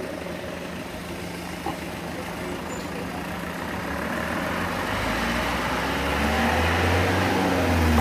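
A motor vehicle's engine approaches, growing louder from about halfway through, and passes close by near the end, its pitch dropping as it goes past.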